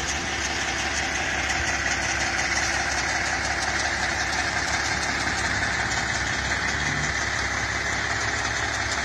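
Tractor-trailer truck's diesel engine running steadily.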